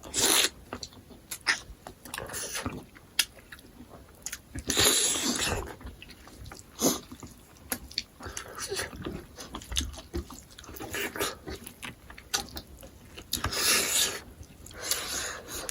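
People chewing and eating smoked pork with axone: irregular wet mouth noises, smacking and small clicks, with a few louder bursts.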